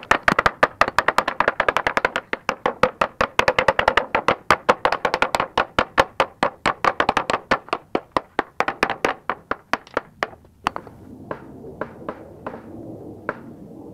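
Claw hammer tapping in quick succession on a wooden plywood frame while fastening wire mesh to it, a steady run of sharp knocks that thins to a few slower taps near the end.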